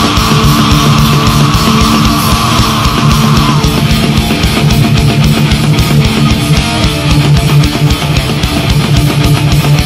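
Metal band playing live: distorted electric guitars, keyboards and fast drumming. A held high note stops about a third of the way in while the band plays on.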